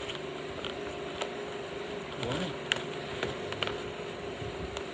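Scattered small clicks and crinkles of a blind-bag packet being handled and opened, over a steady low hum.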